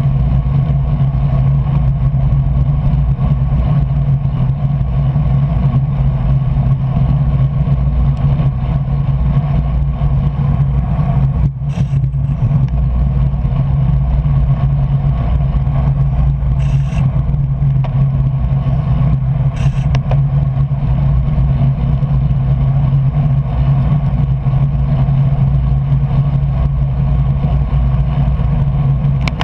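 Steady, loud wind rumble on the microphone of a camera riding on a road bicycle at racing speed, with a few brief clicks about 12, 17 and 20 seconds in.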